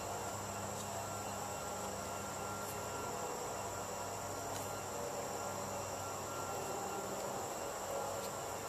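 Insects chirring steadily, a constant high-pitched drone, over a low steady hum, with a few faint soft clicks.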